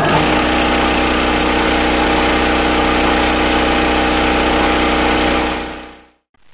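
Film projector running: a steady mechanical whir and rapid clatter over a constant hum, fading out about five and a half seconds in.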